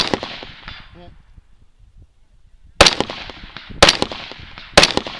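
Four shots from a Stag Arms 3G AR-15-style rifle: one right at the start, then a gap of nearly three seconds, then three shots about a second apart, each with a short echo.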